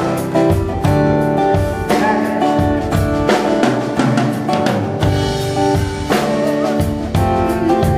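Rock band playing at a sound check: a drum kit with kick and snare hits over held chords from guitars and keyboards.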